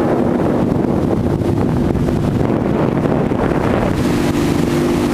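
Tow boat's engine running at a steady drone while pulling a kneeboarder, over wind buffeting the microphone and rushing water. The engine hum comes through more strongly about four seconds in.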